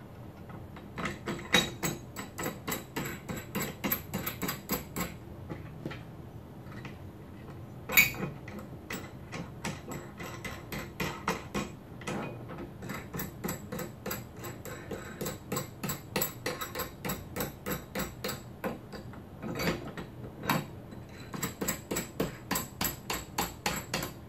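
Metal antenna mounting-bracket hardware clicking as nuts are run onto the bracket's bolts by hand: runs of sharp metallic clicks at about four a second, broken by short pauses, with one louder knock about eight seconds in.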